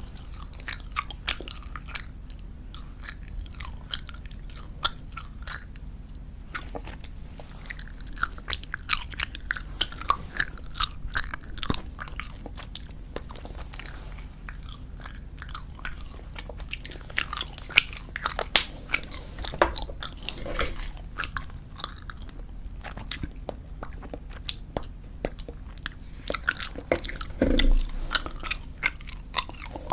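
Close-miked chewing of squeezable tube bubblegum: a steady run of wet, sticky smacks and clicks, with a louder burst near the end.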